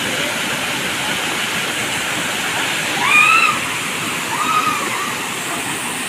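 Waterfall pouring steadily into a shallow rock pool, a constant rushing of falling water. Two short high calls rise above it, the louder about three seconds in and a fainter one a second or so later.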